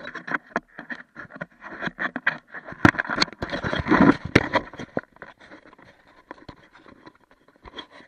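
Handling noise of a small camera being pulled out from under a van: irregular scraping, rustling and knocks against the body and housing, loudest and busiest in the middle and thinning out near the end.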